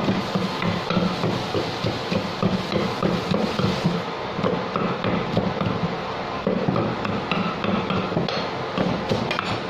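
A pestle pounding grilled catfish and shredded green mango in a clay mortar, making a steady run of dull, repeated thuds.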